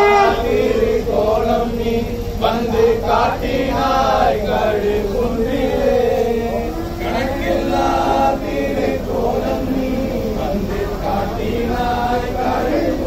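A group of men chanting together in many overlapping voices, loud and ragged.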